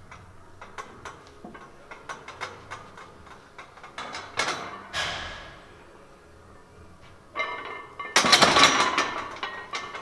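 Plate-loaded barbell on a bench press, its iron plates and bar clinking through a set, with two sharp hissing breaths midway. About eight seconds in comes a loud metallic clatter with some ringing as the bar is racked in the bench's uprights.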